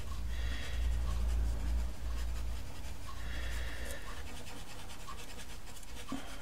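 Pastel pencil held on its side, scratching lightly across textured pastel paper in two short spells of strokes, over a low steady hum.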